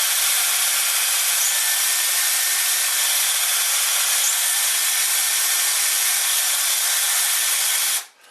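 Hand-held electric drill running steadily as it bores out pilot holes through clamped wooden blocks; it stops abruptly about eight seconds in.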